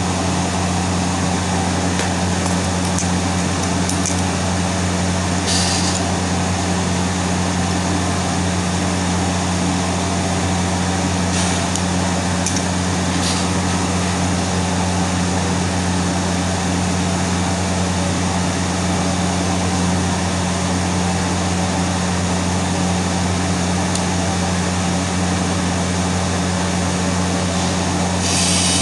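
Electric welding arc burning steadily: a constant hiss and crackle over a low mains buzz, with a few brief sharper hisses now and then.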